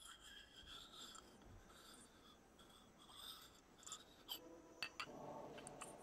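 Near silence: faint scratching and rubbing, with a few sharp clicks near the end.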